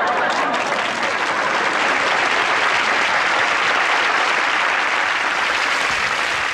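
Studio audience applauding, a loud, steady clapping.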